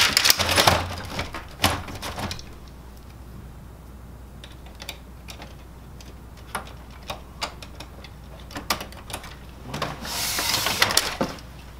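Plastic clicks, knocks and rattles as parts of a Kyocera FS-4200/4300 laser printer are handled and clipped back into place, busiest in the first two seconds with scattered clicks after. About ten seconds in there is a louder sliding, scraping rush of plastic as a part is pushed into the printer.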